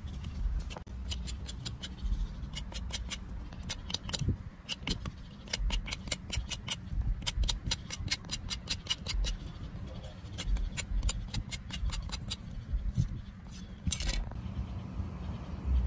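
Knife blade scraping and shaving the bark off a Java plum scion stick in quick runs of short strokes, several a second, with a longer, louder scrape near the end.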